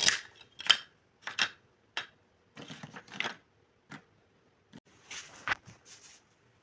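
Small hard plastic pieces of a toy kitchen set being handled and set down: an irregular run of light clicks and taps, about a dozen over the few seconds, some with a short rattly crackle.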